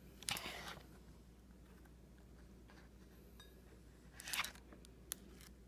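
Foil drink pouch crinkling as it is handled, in two short rustles, one just after the start and one about four seconds in, followed by a single sharp click.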